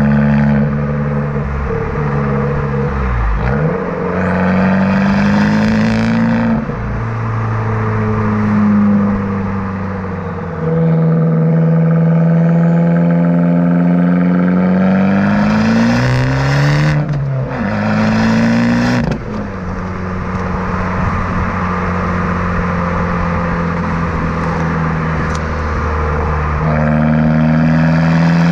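Abarth 595 Competizione's turbocharged 1.4-litre four-cylinder through a Monza exhaust with its valve flap held open. The revs rise and fall over and over, the pitch climbing under throttle and dropping suddenly several times.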